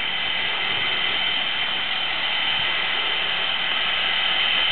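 Steam locomotive No. 89, a Canadian-built ex-Canadian National engine, hissing steam in a steady, even rush.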